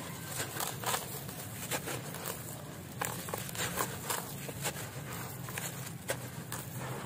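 Hands squeezing and crumbling a wet, sandy concrete chunk in a basin of water: irregular gritty crunches and crackles as it breaks apart.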